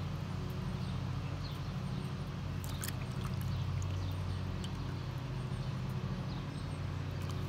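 Small splashes and drips of water as roasted jalapeños are dipped and peeled in a bowl of cold water, with a few faint clicks about three seconds in, over a steady low hum.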